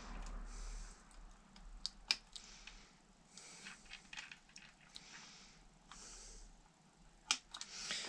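Faint rustling and small sharp clicks of wires and connectors being handled and plugged into an electric scooter's replacement controller board, with a pair of clicks about two seconds in and more near the end.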